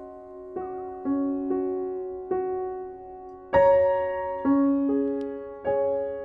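Background piano music: slow, gentle notes struck one after another, each ringing and fading.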